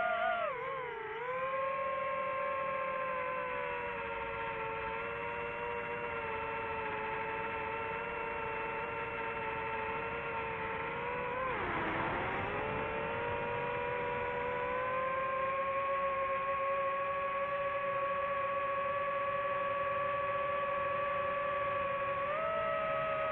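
DJI FPV quadcopter's motors and propellers whining steadily. The pitch dips about a second in, drops sharply around the middle and climbs back over a few seconds, and steps up near the end as the throttle changes.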